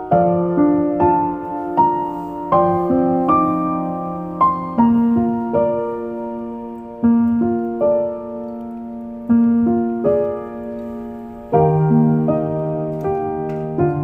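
Slow background piano music: single struck notes fading away over low notes held a couple of seconds each.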